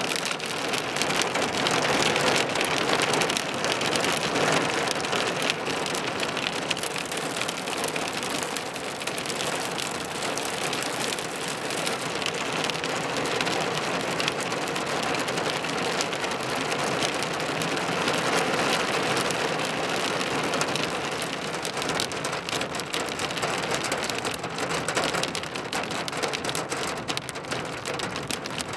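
Small hail mixed with rain pelting a car's body: a dense, steady clatter of countless small impacts.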